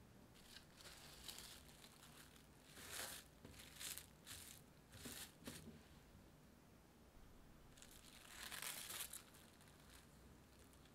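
Plastic cling wrap crinkling as it is handled, in several short bursts and one longer crinkle near the end.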